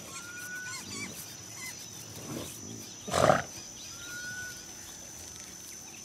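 A Cape buffalo gives one short, loud grunting call about three seconds in, over a steady high insect drone, with two short faint whistles before and after it.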